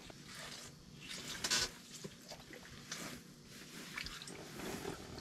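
Faint water splashing and dripping at an ice-fishing hole as a burbot is let back into the water, with a few short handling noises. The clearest splash comes about one and a half seconds in.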